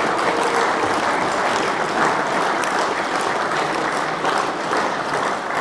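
A crowd applauding, with many hands clapping steadily.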